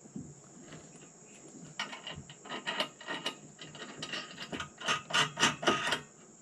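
Ratchet wrench clicking in quick strokes, about three a second, as it tightens the mounting bolt of an LED work light; the clicks grow louder toward the end. A steady high insect chirr, likely crickets, runs underneath.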